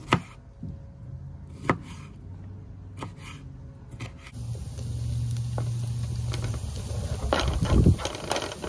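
Kitchen knife slicing a tomato on a wooden cutting board: four sharp knocks of the blade on the board, about a second apart. About four seconds in, red onion and tomato frying in a pan with a steady sizzle, and a wooden spatula knocking and scraping the pan near the end.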